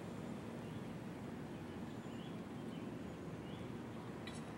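Outdoor ambience under an approaching thunderstorm: a steady low rumble of background noise, with a few short, faint bird chirps and a brief click near the end.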